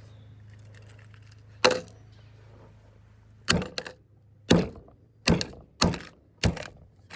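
A plastic computer mouse being struck hard: one sharp blow, then after a pause a run of about six more in quick succession, each a loud crack.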